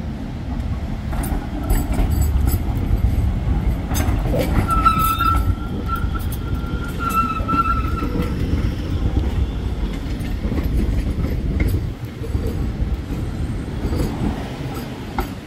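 Tram running on street track: a low rumble of wheels on rail with clicks over the rail joints, and a high steady tone for about three seconds near the middle.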